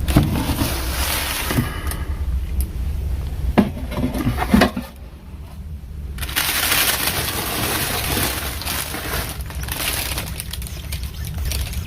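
Stored objects being shifted and rummaged through: scattered knocks and clatters with scraping, rustling handling noise, and a brief lull about five seconds in.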